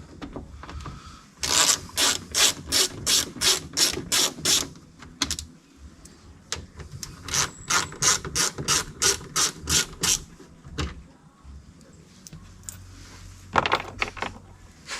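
Hand ratchet with a 7mm socket clicking as it backs out the screws holding a door speaker: two long runs of quick, even clicks, about three or four a second, and a brief third run near the end.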